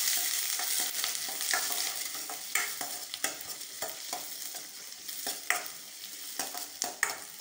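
Small onions and curry leaves sizzling in hot oil in a metal kadai, with a spatula scraping and knocking against the pan as they are stirred. The sizzle is loudest at the start and eases off somewhat.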